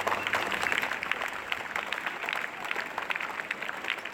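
Applause: a group of people clapping, strongest at first and easing off a little toward the end.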